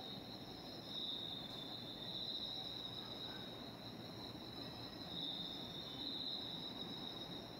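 Night insects, crickets, trilling steadily at two high pitches that swell and fade slightly, over a faint low background rumble.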